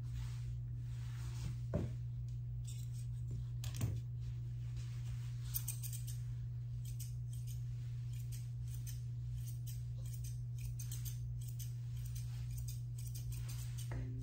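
Curved grooming shears snipping repeatedly through a toy poodle puppy's coat in quick, crisp metallic cuts, over a steady low hum.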